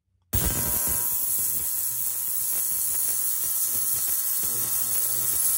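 SQAU ultrasonic cleaner running with carburetor parts in a bath of water and degreaser, vibrating them at a very high frequency to shake the dirt loose. It makes a steady high hiss with a faint buzz, which begins abruptly a moment in.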